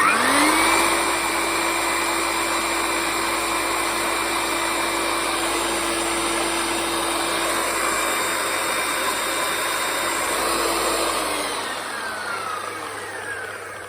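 Hilti TE60 rotary hammer drill's motor spins up, runs steadily for about eleven seconds, then winds down near the end. In hammer-drill mode the bit turns only very slowly and just the hammer action works: a fault in the drill's rotation.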